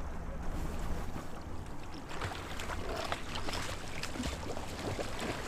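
A boat's motor running steadily while the boat holds position, with a few light knocks and splashes.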